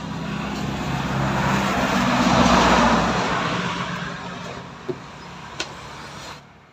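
A motor vehicle passing by: its engine and road noise swell to a peak about halfway and then fade away. Two sharp clicks sound near the end.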